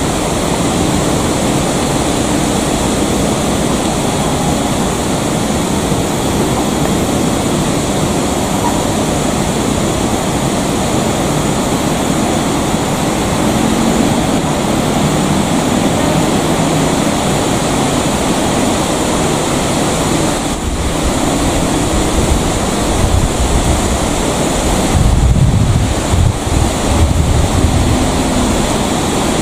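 Strong wind buffeting the microphone: a steady rushing noise, with heavier low gusts near the end.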